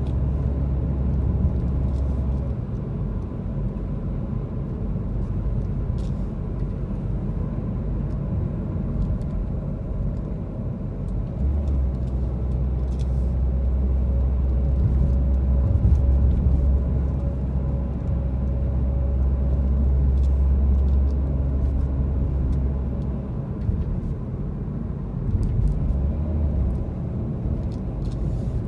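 A car being driven, heard from inside the cabin: a steady low rumble of engine and road noise. A deeper drone sits under it at the start and again through the middle stretch.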